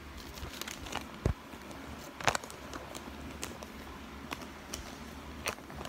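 Handling noise from the recording phone being moved about: scattered clicks, taps and light rustles, with a dull knock about a second in and sharper clicks a little past two seconds and near the end.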